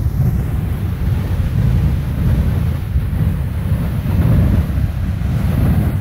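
Beehive Geyser erupting: the steady rushing hiss of its jet of water and steam shooting from the cone, with wind buffeting the microphone.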